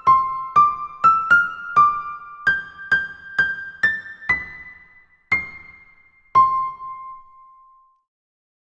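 Short outro tune on a piano-like electric keyboard: single notes played one at a time in a slowly rising melody, ending on a lower note that rings out and fades.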